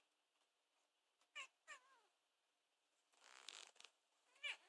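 Tabby cat making short, squeaky meows: two quick calls about a second and a half in, the second sliding down in pitch, and another brief rising call near the end. A soft rustle comes a little past halfway.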